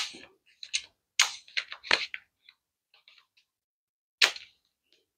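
Sharp plastic and metal clicks and knocks from the stainless steel telescopic wand and black plastic handle of a Miele Complete C3 vacuum being handled and fitted together. There is one click at the start, a quick cluster about a second in, and one more near the end.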